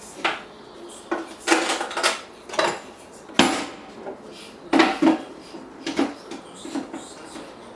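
Metal clamps and tools clattering and knocking on the perforated wooden worktop of a homemade toolbox as a piece is set up and clamped down: a string of irregular sharp knocks.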